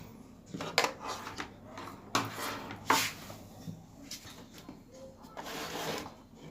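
Knocks, clicks and a scrape of hard plastic and metal being handled as a CRT television is taken apart to get at its circuit board.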